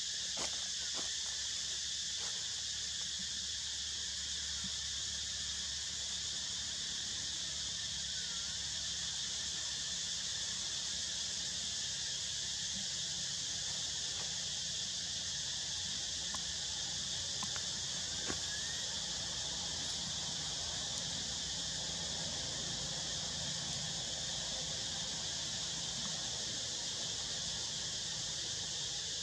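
Steady, high-pitched insect chorus with a few faint clicks.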